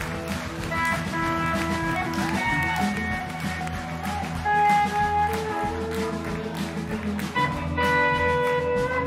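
Live electric blues band playing: electric guitars hold long sustained notes, one bent in pitch about two and a half seconds in, over bass guitar and drum kit.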